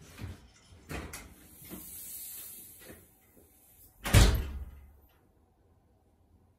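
A house door being opened and gone through, with a few knocks and clunks and a stretch of hiss, then the door banging shut with a heavy thud about four seconds in.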